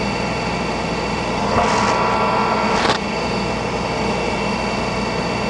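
K.O. Lee tool and cutter grinder running, its hydraulic table traverse and spindle motor giving a steady machine hum. About a second and a half in it briefly gets louder, ending in a sharp click near three seconds.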